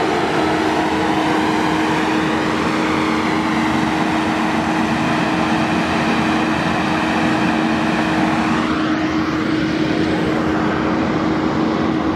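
Kubota SVL95-2s compact track loader's diesel engine running loud and steady, with a constant hum. Something rises in pitch about nine seconds in.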